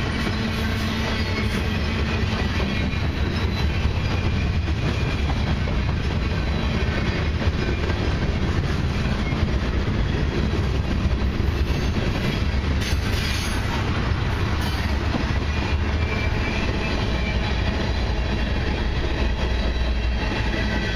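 CN mixed freight train's boxcars and tank cars rolling past at trackside: steady noise of steel wheels running on the rails, with no break or change in level.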